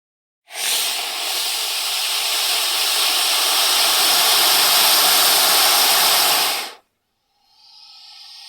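A snake hissing: one long, loud hiss lasting about six seconds that cuts off sharply, then a second, fainter hiss starting near the end.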